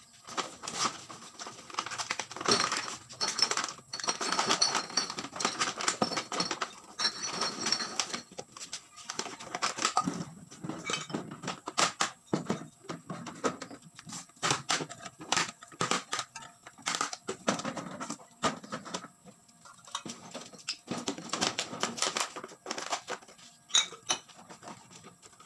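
Empty plastic bottles clattering and crackling as they are pulled from a pile and tossed aside, an irregular run of light clicks and knocks.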